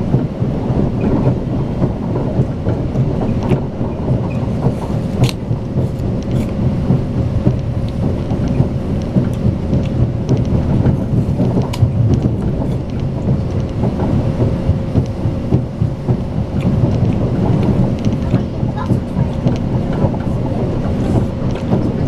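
Strizh Talgo high-speed passenger train running at speed, heard from inside the carriage: a steady low rolling rumble with a faint steady hum and scattered sharp clicks from the running gear.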